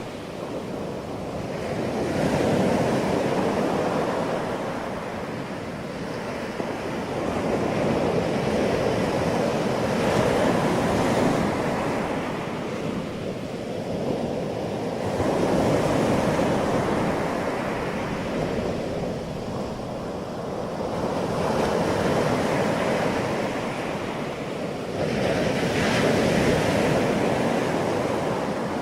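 Ocean surf breaking on a beach, a continuous wash of water that swells and fades every several seconds as each wave comes in.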